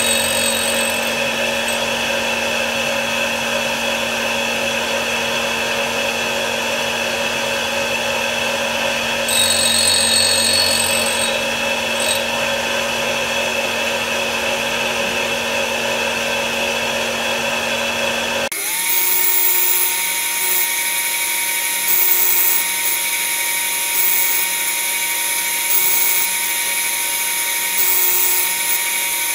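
Homemade tool grinder with a grit-180 diamond cup wheel running with a steady whine while a countersink's cutting edges are ground on it, reducing their relief angle. It is louder for a couple of seconds about a third of the way in. About two-thirds through, the sound changes abruptly: the low hum drops out and a higher steady tone takes over.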